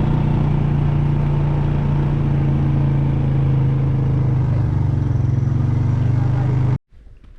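ATV (quad) engine running steadily while riding, dipping slightly in pitch partway through, then cutting off suddenly near the end.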